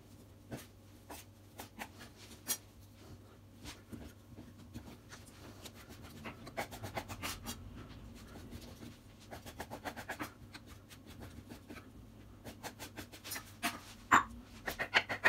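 Chef's knife cutting a block of mimolette cheese into small cubes on a wooden cutting board: irregular knocks of the blade on the board, coming in quicker runs from about halfway through, with one sharper knock near the end.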